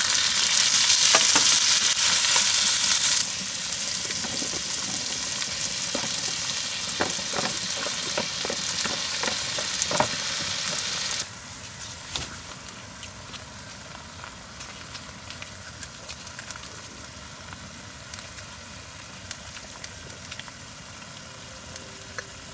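Food sizzling in a frying pan, with scattered utensil clicks. It is loudest for the first three seconds and becomes much quieter from about eleven seconds in.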